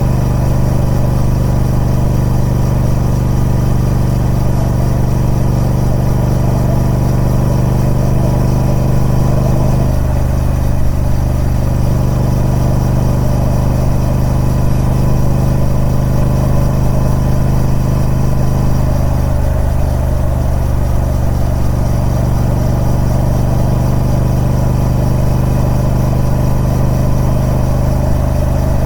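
Triumph Speed Twin 1200's parallel-twin engine running through its stock exhaust, a steady note whose pitch steps down about ten seconds in and again a little before twenty seconds.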